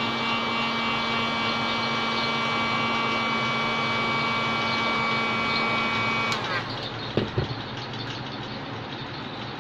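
Hot air gun running, a steady rush of air with a steady motor whine, blown at the phone's edge to soften the adhesive for the screen replacement. About six seconds in the whine drops away, and two sharp knocks follow.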